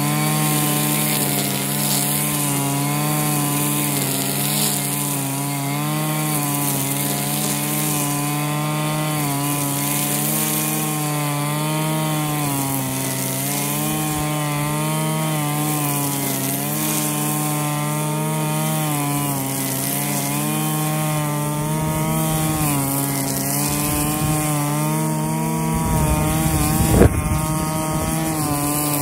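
Husqvarna 545RX two-stroke brushcutter running at high revs with a string trimmer head cutting grass. The engine note dips and recovers every couple of seconds as it takes the load. A brief loud knock comes near the end.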